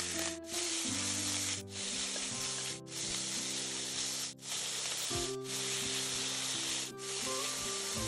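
Chunks of beef sizzling as they fry in hot sesame oil in an enamelled cast-iron pot while being stirred with a spatula. The sizzle is a loud, steady hiss that breaks off briefly several times.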